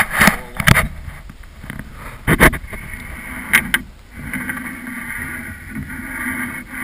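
A steel framing square knocking and clacking on a wooden 2x12 plank as it is set in place, the loudest knock about two and a half seconds in. Then a steady scratching as a pencil draws a line along the square's edge.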